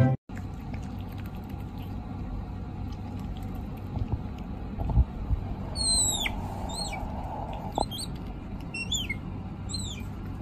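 Small otter giving a string of short, high chirps, each falling in pitch, about one a second, starting about halfway through over low room noise.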